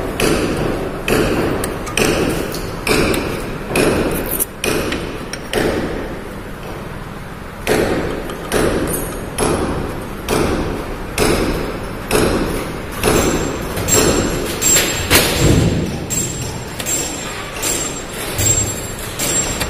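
Hand file drawn across a steel plate clamped in a bench vice: a steady rhythm of short rasping strokes, about one a second, with a two-second pause about a third of the way in.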